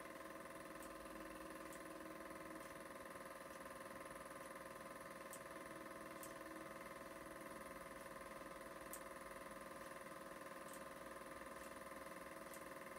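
Super 8 film projector running: a faint, steady mechanical whir made of several held tones, with a few scattered small ticks.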